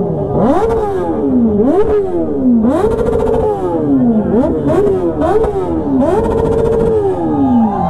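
Motorcycle engine revved again and again in quick throttle blips. The pitch jumps up and slides back down about once a second, and twice the revs are held briefly at the top before dropping.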